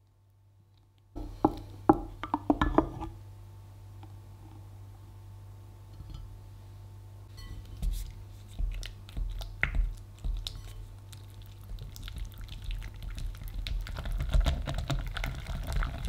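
A short clatter of sharp knocks about a second in. Then a silicone-coated balloon whisk stirs soft cream cheese in a glass bowl: a wet squelching with many quick ticks of the wires against the glass, growing faster and denser near the end.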